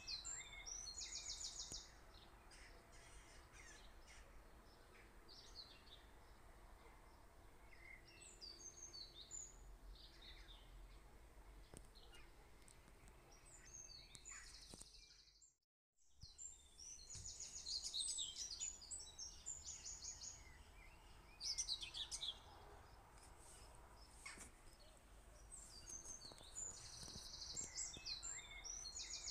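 Faint birdsong: a high, rapid trilled phrase repeated several times among scattered chirps. The sound cuts out completely for a moment about halfway through.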